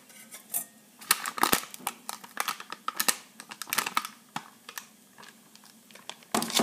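A spoon tapping and scraping against a stainless steel mixing bowl as dollops of mascarpone are dropped onto whisked egg whites: a run of irregular light clicks and scrapes, with a sharper knock near the end.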